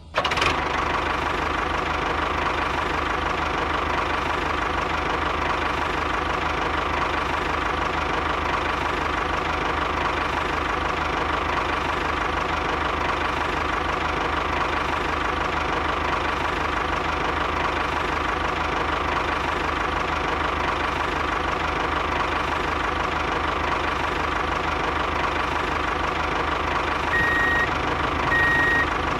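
A tractor engine idling steadily. About two seconds before the end, a repeating high electronic beep starts, like a vehicle's reversing alarm.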